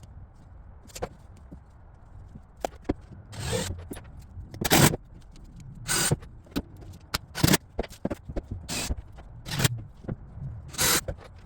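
Workshop assembly of wooden stool parts: a run of irregular sharp knocks and short scraping sounds of wood and tools, roughly one every second, the loudest about five seconds in.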